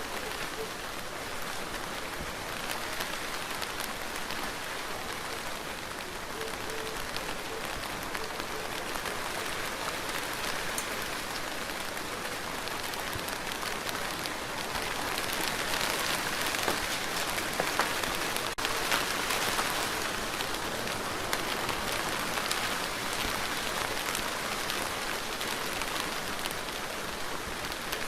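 Steady rain falling and pattering on a surface, a dense hiss full of fine drop ticks, swelling a little about halfway through.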